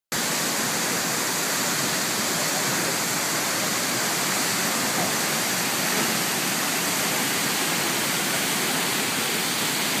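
Tall waterfall plunging into a pool: a steady, unbroken rush of falling water.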